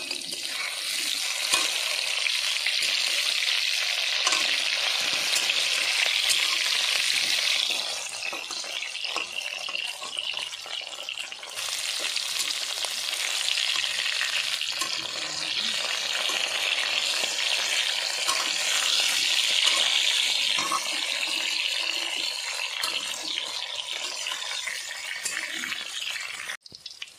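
Potato and pointed gourd pieces sizzling as they fry in hot oil in an aluminium kadai, turned now and then with a metal spatula. The sizzle eases for a few seconds about a third of the way in and cuts out abruptly just before the end.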